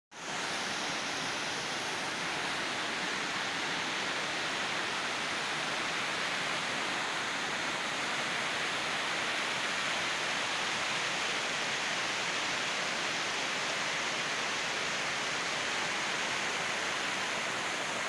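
Waterfall tumbling over rocks: a steady rush of falling water that fades in at the very start.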